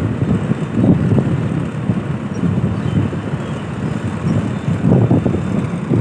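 Rice combine harvester running close by, a loud steady rumble that surges now and then, with wind buffeting the microphone.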